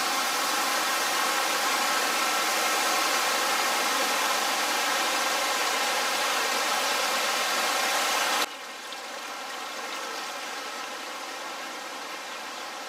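Steady rushing hiss that drops suddenly to a quieter hiss about two-thirds of the way through.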